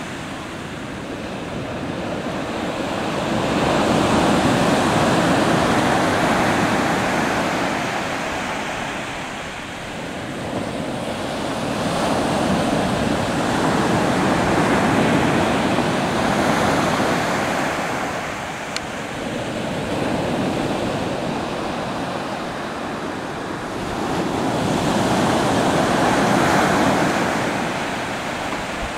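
Pacific Ocean surf breaking and washing up the beach, rising and falling in three slow surges about ten seconds apart.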